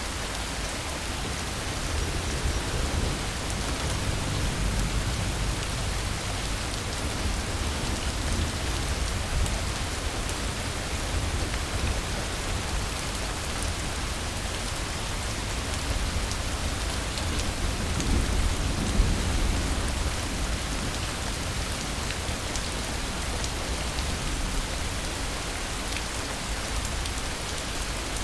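Steady rain falling, an even hiss with scattered drop ticks and a low rumble that swells a few seconds in and again past the middle.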